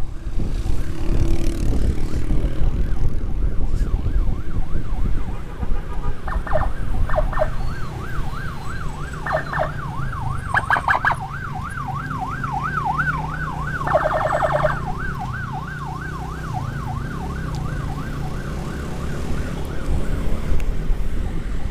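Wind rushing over the microphone and a motorcycle engine running at road speed. About six seconds in, an emergency siren starts a fast yelp, about three rising-and-falling sweeps a second, broken by a few short, louder bursts.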